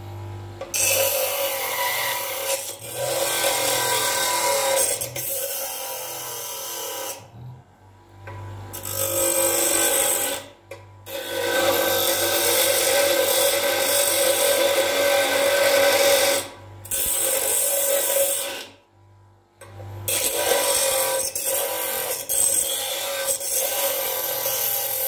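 Parkside PDOS 200 C2 bench grinder with a piece of soft aluminium held against the spinning wheel: a loud rasping grind in several long passes. The grind breaks off briefly a few times, about eight, eleven and nineteen seconds in, while the motor hums on steadily underneath.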